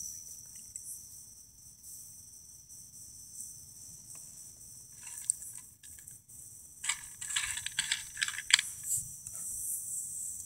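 Crickets trilling steadily in a night-time insect chorus, a continuous high-pitched drone. A few short, louder noises break in about five seconds in and again from about seven to nine seconds.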